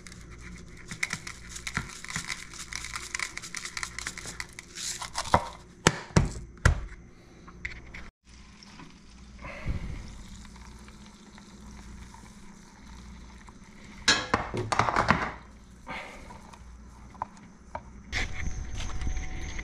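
Dried seasoning rattling out of a plastic shaker jar onto butter in a plastic tub, followed by a few sharp knocks. Later, a spatula stirring and scraping melted butter in the plastic tub.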